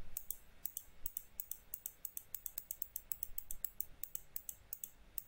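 Fast, uneven run of faint clicks at a computer, about seven a second, as the trading chart on screen is stepped forward.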